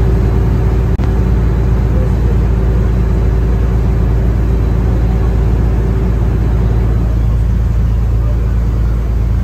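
Small excursion boat's engine running steadily under way, with water rushing along the hull.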